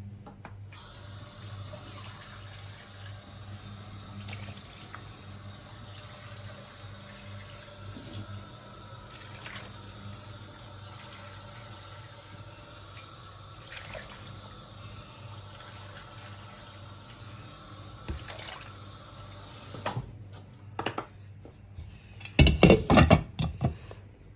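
Water running steadily, as from a tap, for about twenty seconds before cutting off, followed by a short burst of loud clattering, typical of cookware being handled.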